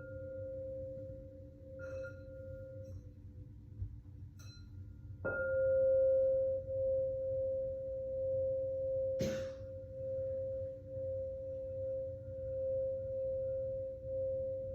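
Singing bowl ringing with a steady, wavering tone, tapped lightly a few times and then struck harder about five seconds in, after which it rings on louder. A short noisy knock comes about nine seconds in.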